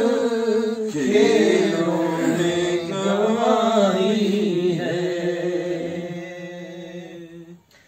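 Male voices singing an Urdu naat unaccompanied, drawing one long, bending line out on sustained vowels, which fades away near the end.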